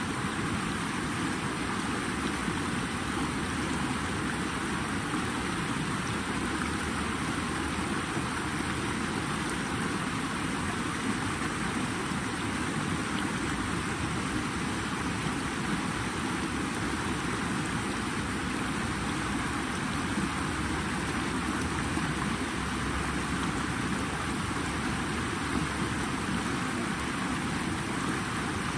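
Flowing water making a steady, even rush with no distinct splashes or breaks.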